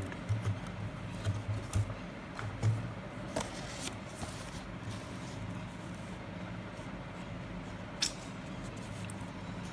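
Sheets of paper being handled and flipped, with soft bumps in the first few seconds and a few sharp clicks, over a steady low hum.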